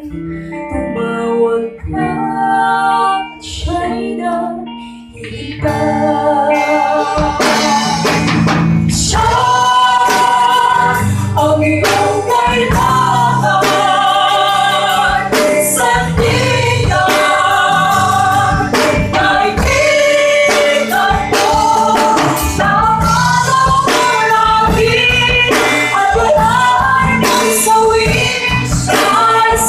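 Live band with several singers on microphones through PA speakers, voices singing together over acoustic and electric guitar. The first few seconds are softer; about six seconds in the full band comes in louder with a steady beat and stays that way.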